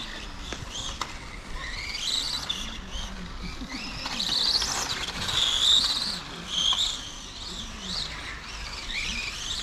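ARC R8S 1/8 electric pan car's brushless motor and drivetrain whining as it laps the track, the pitch rising and falling with throttle and loudest about halfway through as the car passes close.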